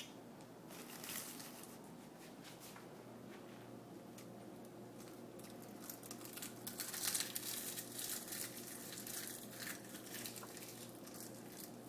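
Plastic snack packet crinkling and rustling in bursts, denser in the middle, as a seaweed snack pack is handled and rummaged in, over a steady low hum.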